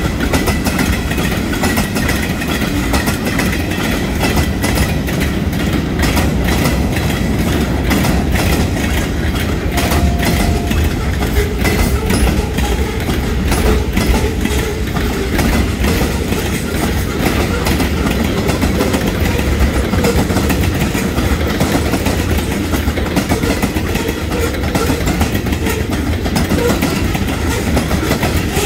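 A freight train's cars rolling past close by: tank cars, lumber flatcars and covered hoppers, their steel wheels rumbling and clicking steadily over the rail joints.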